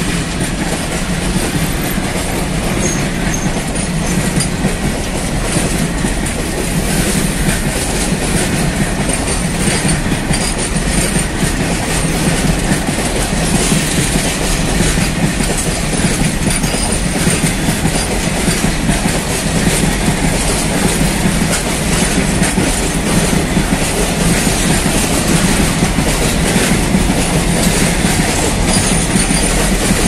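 Long freight train of covered goods wagons rolling past close by: a steady rumble with wheels clattering over the rail joints.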